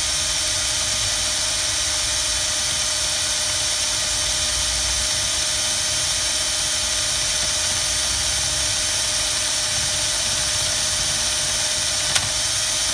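Cordless drill running steadily at high speed, turning a boring tool that cuts out the cylinder opening of a GY6 scooter engine's aluminium crankcase, fed slowly. One sharp tick near the end.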